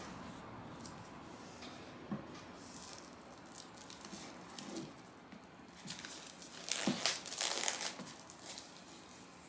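Plastic shrink-wrap being torn open and peeled off a book, with crinkling of the thin film that is loudest about seven seconds in.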